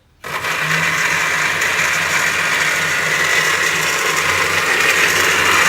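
Electric blender switched on and running steadily, loud, grinding whole spices and water into a wet paste. It starts abruptly just after the beginning.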